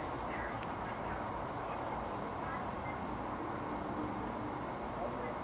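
Crickets chirping in a steady, high, evenly pulsing trill, over a constant low background rumble.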